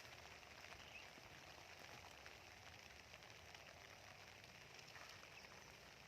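Faint, steady rain: an even hiss of rainfall with scattered soft drop ticks.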